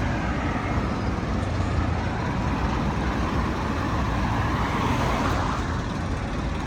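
Road traffic noise: a steady low rumble of vehicle engines and tyres, swelling slightly about four to five seconds in.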